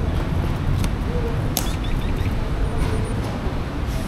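Key turned in a sport bike's locking fuel cap, with one sharp click about a second and a half in as the cap unlatches, followed by a few small ticks, over a steady hum of traffic.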